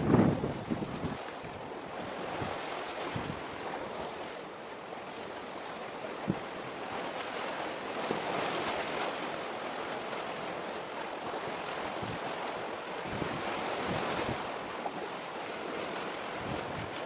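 Steady rush of wind and choppy sea water, with wind buffeting the microphone in low gusts at the very start. One brief click about six seconds in.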